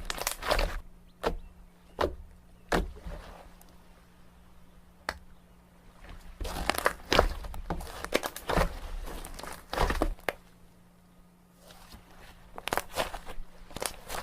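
Slime being squished and pressed by hand, giving irregular wet clicks and pops in clusters, with a couple of quieter pauses.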